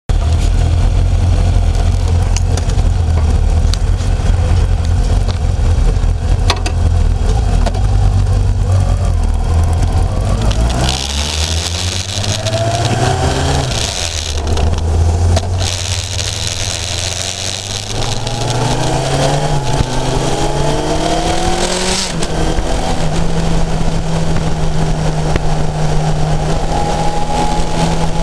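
Onboard sound of a Kawasaki inline-four motorcycle engine under way, with a heavy rumble of wind and road noise for the first ten seconds or so. Between about 11 and 22 seconds the engine revs up again and again, rising in pitch through gear changes. After that it holds a steady pitch while cruising.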